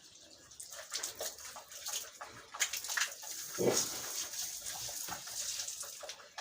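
Pigs grunting in the pen, one louder grunt a little over halfway through, among scattered scraping and rustling noises.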